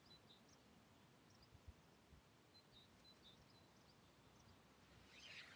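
Near silence outdoors with faint, short bird chirps repeating on and off, and a brief soft hiss or rustle near the end.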